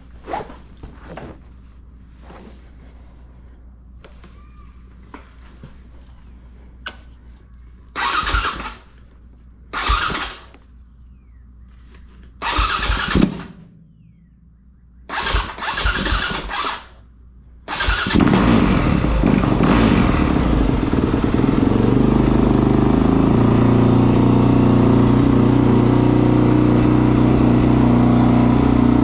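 A 2019 Yamaha YZ250F's 250 cc single-cylinder four-stroke engine is cranked in four short bursts without catching. It fires about 18 seconds in and settles into a steady idle.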